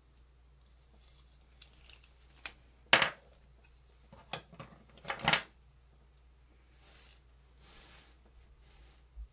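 Bench-handling clatter: a wooden ring clamp is knocked, opened and set down among metal jewelry tools. It gives a sharp clack about three seconds in, then a few more clacks and clinks around five seconds, and softer rustling near the end.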